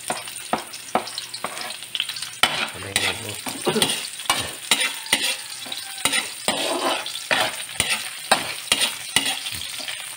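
Ginger, onion and garlic sautéing in hot oil in a pan, sizzling steadily, while a utensil stirs them with frequent irregular scrapes and clicks against the pan.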